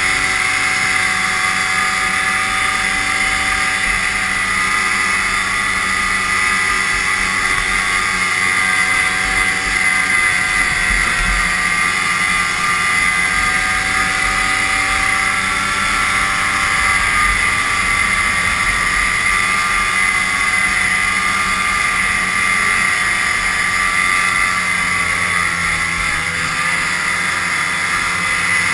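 Vintage snowmobile's two-stroke engine running at trail speed, steady with small changes in engine speed as the rider eases off and back on, heard from the sled itself with wind and track noise underneath.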